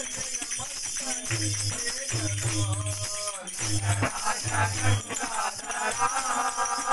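Devotional bhajan music: men singing to a hand drum, with small metal percussion jingling steadily.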